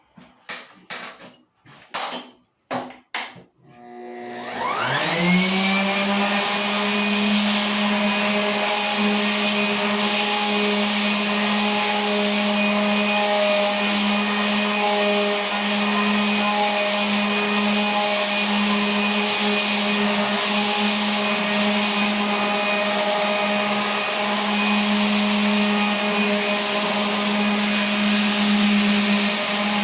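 A few clicks and knocks, then an electric sander's motor spins up about four seconds in and runs steadily with a hum and a hiss, sanding a sand-textured plaster wall that is coarser than the sandpaper.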